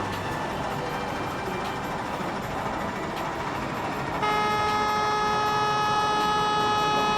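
A single steady horn note sounds for about three seconds, starting a little over halfway in and cutting off cleanly, over constant background noise.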